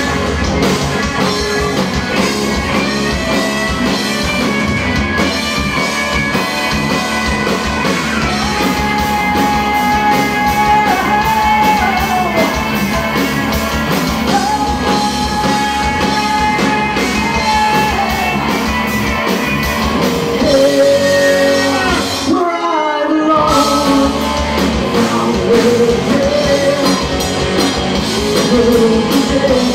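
Rock band playing live, with drums, guitar and a singing voice, and long held notes in the middle. The band cuts out for under a second about three-quarters of the way through, then comes straight back in.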